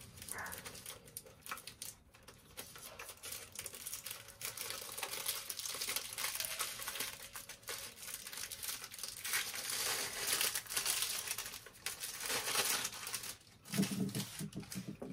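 Crumpled packing paper crinkling and tearing as it is pulled out of the underside of a cuckoo clock case. Near the end there are a few lower clinks as the freed brass chains drop loose.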